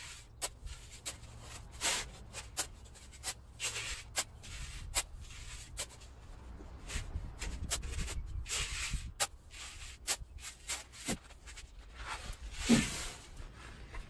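Steel spade scraping and digging into dry sand, with sand pouring off the blade into a plastic bucket: a run of short scrapes and several longer pours, the loudest near the end.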